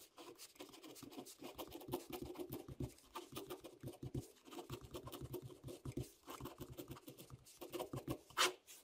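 Ballpoint pen scratching on paper in many short, uneven strokes as letters are written by hand.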